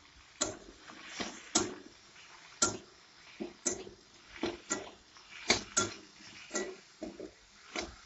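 A metal spatula knocking and scraping against a metal kadai as vegetables are stirred, with irregular clinks about one or two a second.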